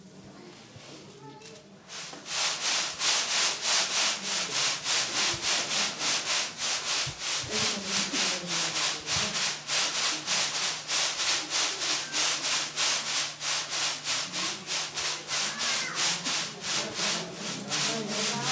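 A large sieve hung from ropes being shaken back and forth by hand, its contents swishing in an even rhythm of about three strokes a second, starting about two seconds in.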